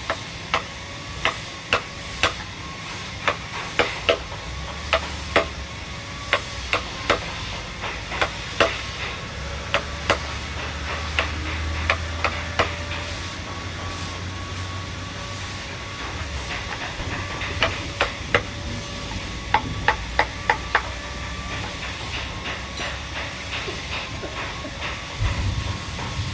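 Sharp knocks of a hand tool striking wood, in irregular runs of taps about one or two a second with short pauses, over a faint steady hum.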